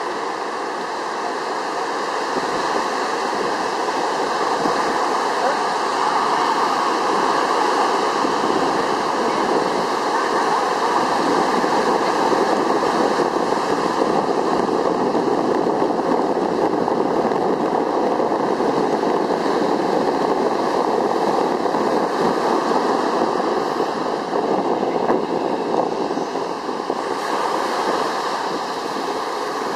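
Steady rushing noise of wind and water, with no break or change.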